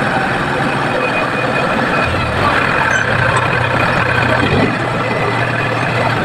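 Diesel engine of a tractor-mounted hydraulic grab loader running steadily while the grab works. Its low hum strengthens for a couple of seconds from about two seconds in.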